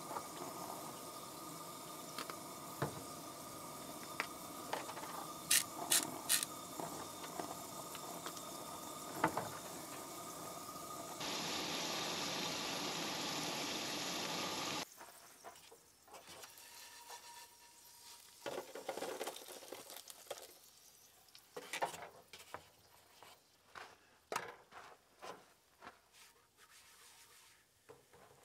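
Eggs and diced potatoes sizzling in oil in frying pans on a propane camp stove, with a few sharp clicks about six seconds in. The sizzle is loudest and most even for about four seconds in the middle. It then drops to a quiet sizzle broken by scattered scrapes and taps of a wooden spatula in the pan.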